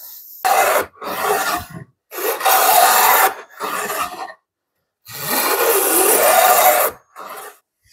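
Hand plane taking shavings off the edge of a board in about six strokes of varying length, the longest about two seconds near the end. The edge is being planed down to a marked line to set its angle.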